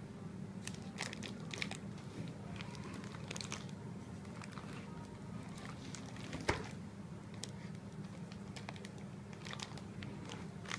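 Clear plastic bag packed with cinnamon sticks crinkling and crackling as a hand handles it, over a steady low hum. One sharper knock stands out about two-thirds of the way through.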